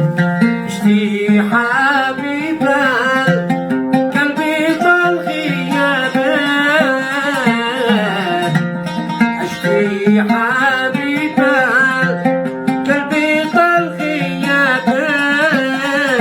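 Music: a voice singing a wavering, ornamented melody over a plucked-string accompaniment that holds a low sustained note.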